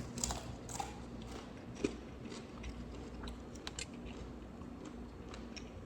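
Close-miked eating of a Bojangles meal: quiet chewing with scattered soft crunches and mouth clicks, one sharper crunch about two seconds in.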